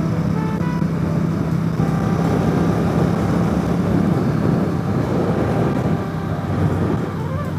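Motorcycle engine running steadily at highway speed, under wind rushing over the microphone. The engine note eases slightly near the end.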